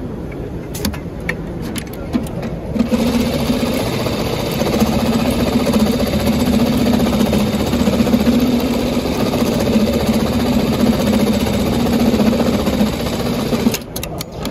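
JUKI AMS-210EN programmable pattern tacker, an industrial sewing machine, stitching a tack pattern through layered webbing. A few clicks come first; then it runs steadily at speed for about eleven seconds and stops abruptly, followed by a few sharp clicks.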